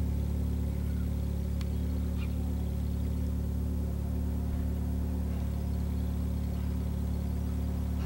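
A steady low mechanical hum made of several held low tones, unchanging throughout.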